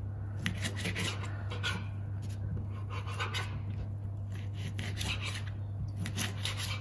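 Kitchen knife slicing repeatedly through stacked shortcut bacon onto a plastic chopping board: a run of short scraping strokes, over a steady low hum.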